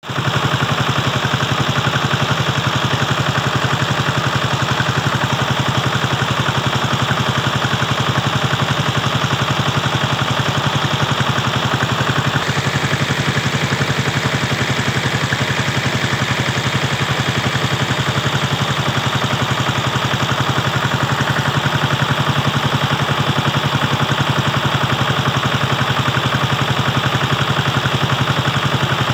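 Small engine running steadily to drive a high-pressure crop-spraying pump, a fast, even pulsing that does not let up, with the hiss of the spray jet.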